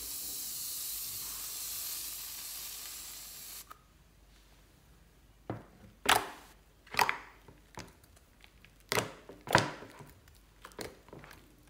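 Aerosol foam can hissing steadily for about three and a half seconds as foam is sprayed out. Then hands press and squeeze the foam into wet glue slime, a string of short, sharp squishes about once a second.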